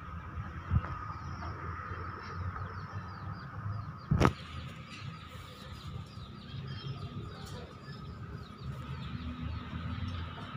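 Birds chirping faintly over a steady low rumble, broken by one sharp knock about four seconds in.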